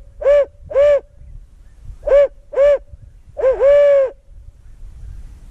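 Barred-owl locator call: loud, close hoots in the 'who-cooks-for-you, who-cooks-for-you-all' rhythm, three short hoots, a pause, two more, then a short hoot sliding into a long drawn-out final one. It is blown to startle roosted turkey gobblers into gobbling.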